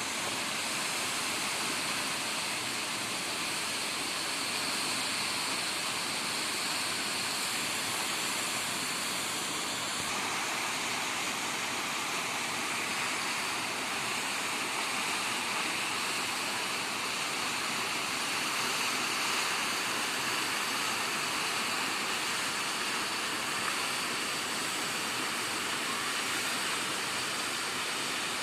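Waterfall: falling water making a steady, unbroken rush that stays even throughout.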